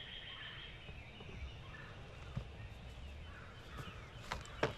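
Faint, distant gobbling of an Osceola wild turkey gobbler, with a couple of sharp knocks near the end.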